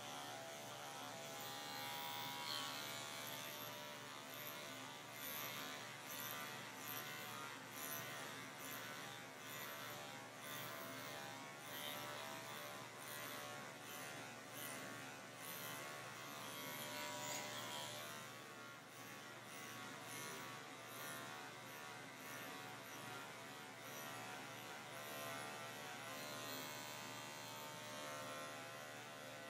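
Cordless dog-grooming clipper fitted with a #10 blade, buzzing steadily as it shaves through a pelt-matted coat, its level wavering a little as the blade works under the mats.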